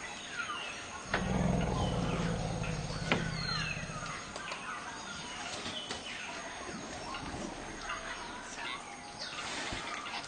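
Forest elephant rumbling: one deep, low call about three seconds long, starting about a second in. It is a contact rumble calling for her family group. Birds chirp throughout.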